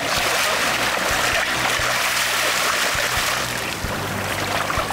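Water rushing and splashing along a slowly moving boat's hull and around a sailfish held alongside by its bill, with a low engine hum underneath. The rush eases slightly about two thirds of the way through.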